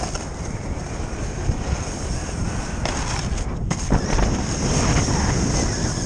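A snowboard sliding over packed snow, with wind buffeting the microphone. About three seconds in comes a brief harsher scrape ending in a sharp knock near four seconds: the board riding a flat rail and coming off it.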